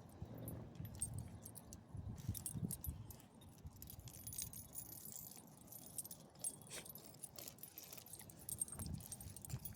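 Small metal dog-collar tags jingling and clinking irregularly as the dog moves, over a few soft low thumps.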